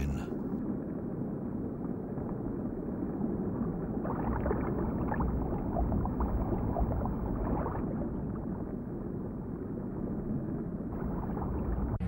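Muffled underwater ambience, a low rumbling hiss, with crackling scuba exhaust bubbles from about four seconds in.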